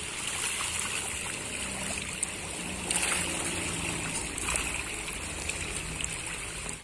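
Steady churning and splashing of water from a dense shoal of pangasius catfish crowding the surface of an earthen pond, a feeding frenzy.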